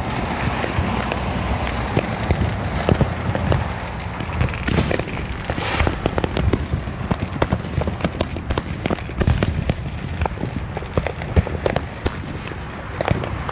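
Fireworks and firecrackers going off without pause: a dense crackle of sharp pops and bangs over a steady low rumble, with a few louder bursts among them.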